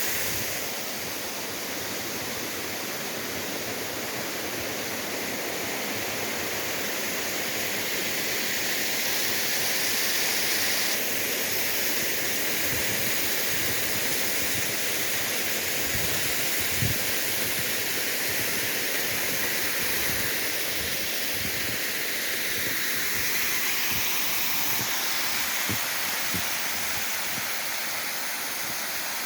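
Waterfall rushing with a steady, loud hiss of falling water. A couple of brief low bumps come through, one about halfway and one near the end.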